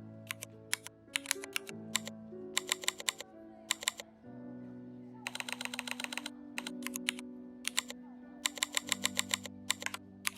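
Computer keyboard typing in quick bursts of keystrokes, over background music with held chords.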